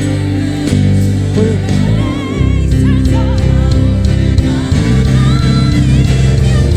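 Gospel worship music: voices singing sustained, wavering notes over a full band with a strong bass.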